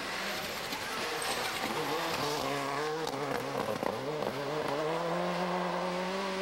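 Ford Escort WRC rally car's turbocharged four-cylinder engine working hard on a gravel stage, its revs climbing and dropping through several gear changes, then holding a steady high note near the end.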